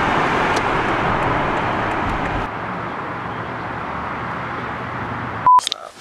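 Steady road and engine noise inside a moving car, giving way about two and a half seconds in to quieter outdoor traffic and wind noise. A short, steady high beep sounds near the end.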